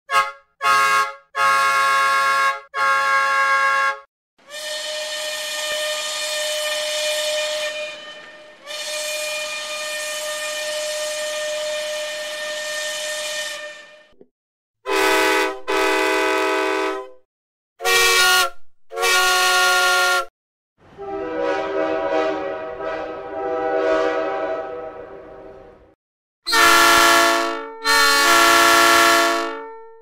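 A series of different train horns sounding one after another, each a chord of several steady tones: four short blasts, then two long blasts with a hiss under them, three shorter toots, a softer wavering blast, and two loud long blasts near the end.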